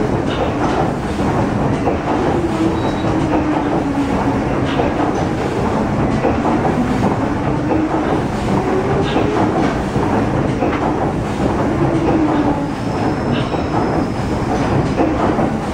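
Paddle steamer Waverley's 1946 Rankin & Blackmore triple-expansion steam engine running at speed, its cranks and connecting rods turning. The sound is a steady, loud mechanical noise with scattered clicks and a tone that rises and falls every few seconds.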